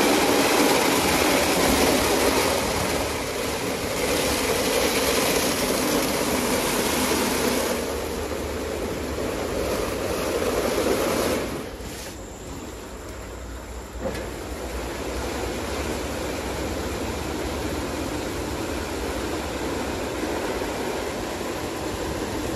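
Christ Genius Vitesse C160 rollover car wash machine running its wash cycle: a loud, steady rushing of water and machinery that changes in tone every few seconds. It drops off about eleven seconds in, then comes back with a short knock about two seconds later and runs on steadily.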